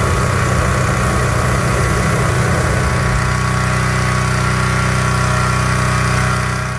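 Petrol-engine inflator fan running steadily at full speed, an even engine drone under the rush of air from its blades. It is blowing cold air into a hot-air balloon envelope during cold inflation.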